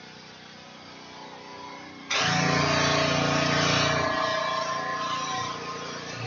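Pressure washer running with an engine hum. About two seconds in it suddenly gets much louder, with a rushing hiss over the engine, then eases a little.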